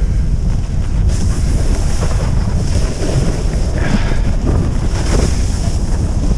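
Loud, steady wind buffeting the microphone of a camera worn by a skier moving downhill, with the hiss of skis on snow swelling a few times.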